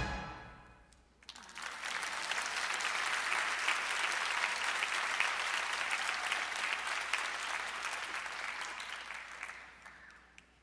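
Audience applauding, starting about a second in as the song's last chord dies away, then fading out near the end.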